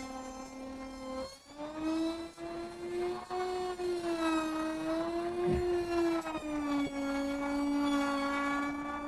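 Electric power tool motor whining steadily, its pitch wavering up and down; it dips briefly about a second in, then comes back higher.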